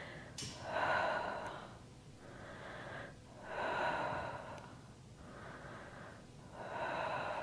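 A woman breathing hard during a Pilates leg-spring exercise, three audible breaths about three seconds apart.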